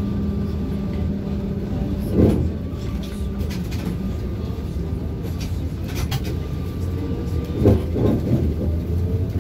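Cabin noise of a moving ZiU-682G trolleybus: a steady low rumble with the thin whine of its DK-213 traction motor, which rises slowly near the end. Clicks and rattles come from the body, with two brief louder bumps, about two seconds in and again near eight seconds.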